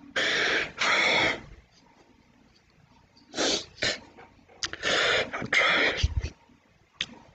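A man crying: breathy sobs and gasps in short bursts, two near the start and a run of shorter ones about halfway through, as he chokes up between words.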